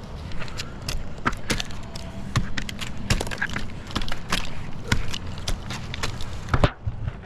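An irregular series of sharp knocks and clicks, a few per second, with a heavier thump about six and a half seconds in, over a steady low hum.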